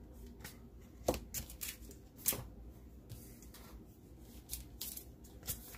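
A comic book being lifted off a display stand and handled: soft paper and plastic rustling with a few light clicks and taps, the sharpest about a second in and just after two seconds.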